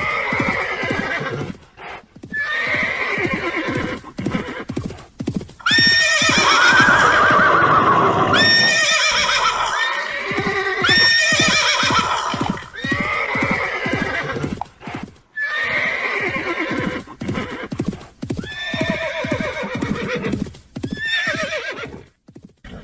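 Horses whinnying again and again over the fast, even beat of galloping hooves; each whinny is a quavering call that drops in pitch, the longest and loudest about six seconds in.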